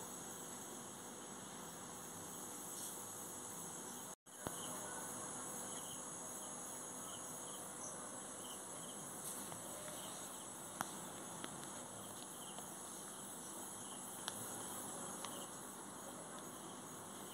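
Faint, short high chirps repeating irregularly over a steady background hiss, with a few soft clicks, and a brief gap in the sound about four seconds in.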